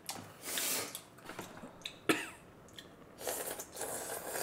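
Hurried eating with chopsticks: short, noisy slurps and sucking-in of food in breathy bursts, with a sharp click about two seconds in.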